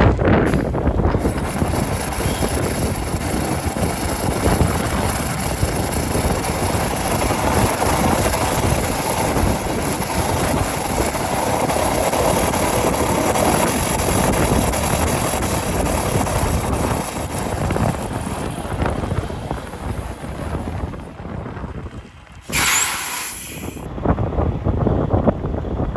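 Strong blizzard wind blowing across the microphone, a steady rushing noise that drops briefly and returns with a short hiss near the end.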